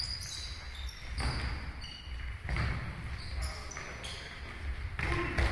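Indoor football in a sports hall: a few thuds of the ball being kicked and bouncing on the court floor, short high squeaks of sports shoes, and occasional shouts from players, all echoing in the hall.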